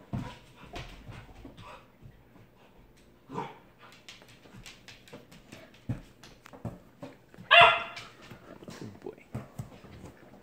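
A dog barks once, loud and high, about three quarters of the way in. Around it are scattered light clicks and knocks and a few fainter short sounds.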